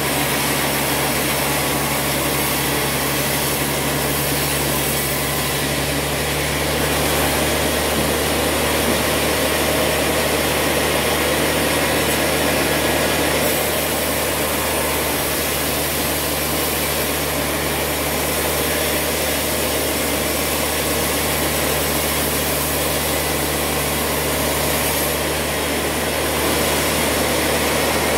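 Large sawmill band saw running and ripping a long timber beam lengthwise, a steady machine hum under continuous cutting noise that grows a little louder in stretches.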